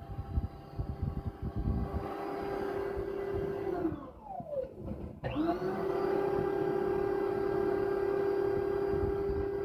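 Small Clog Dog flex-shaft drain cleaner running, its motor spinning the 1/4-inch cable down a clogged toilet, with irregular low knocking under it at first. About four seconds in the motor winds down and stops, then spins straight back up and runs steadily.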